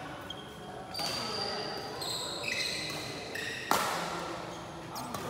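Badminton rally: two sharp racket strikes on the shuttlecock, about a second in and louder near four seconds, echoing in the hall, with short squeaks of shoes on the court floor between them.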